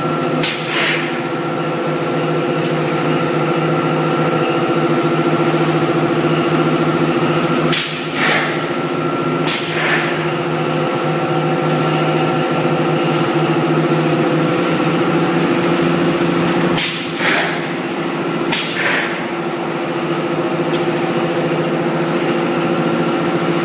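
ZT-F1000 pulp egg tray forming machine running with a steady, many-toned hum. Short hisses of air cut in two at a time, five times over.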